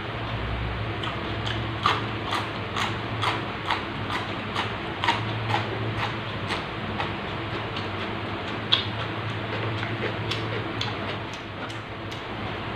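Close-miked crunching of raw vegetables being chewed, about two crisp crunches a second, thinning out in the second half, over a steady low hum.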